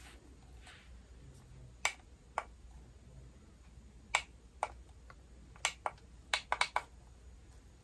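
Sharp plastic clicks, about ten at irregular intervals with a quick cluster near the end, from the power button of an ionic hair straightener brush being pressed over and over while the brush fails to switch on.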